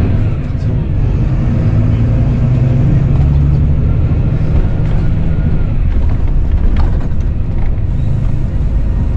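Volvo B9R coach with Caetano Levante body heard from inside the passenger cabin: its rear-mounted six-cylinder diesel running steadily under way over a low road rumble. A couple of sharp clicks come about two seconds apart after the middle.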